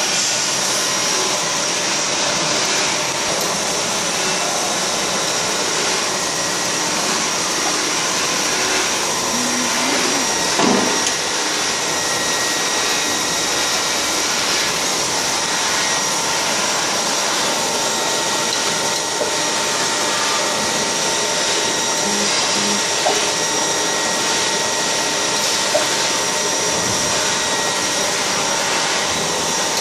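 Steady whir and hiss of running plastics-factory machinery, with a few faint steady tones over it. A brief louder swish comes about ten seconds in, and there are a couple of small clicks later on.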